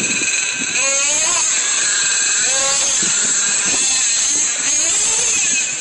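Traxxas Revo nitro RC monster truck engine running at high pitch, revving up and falling back several times as the truck drives.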